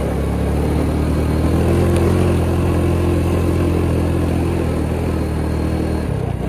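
Motorcycle engine running steadily under way, its note rising a little about two seconds in and the engine easing off near the end.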